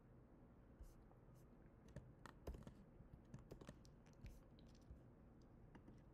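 Faint typing on a computer keyboard: irregular, separate key clicks with short pauses between them.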